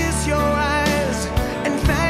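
Background music: a slow song with long-held bass notes and a wavering melody line.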